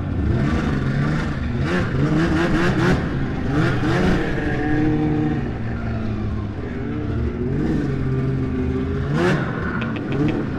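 Two-stroke engine of a Polaris XC SP 600 snowmobile riding off under throttle. Its pitch rises and falls several times, with one sharp rev and drop about nine seconds in.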